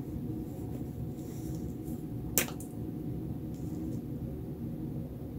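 A single sharp click about two and a half seconds in, from handling a clogged plastic acrylic paint bottle, over a steady low room hum.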